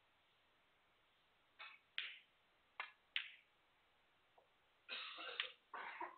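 Snooker balls clicking as the cue ball is struck and runs into the pack of reds: four sharp clicks in close succession about a second and a half in, then two longer, rougher sounds near the end.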